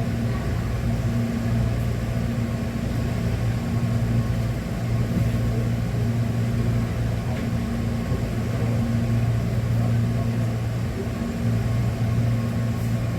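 Steady low hum of an electric train heard from inside the passenger car, holding one deep tone with a higher one above it.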